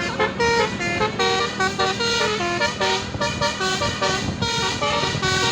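Basuri telolet bus horn playing a fast tune of short stepped notes, several horn tones sounding together, over a steady low hum.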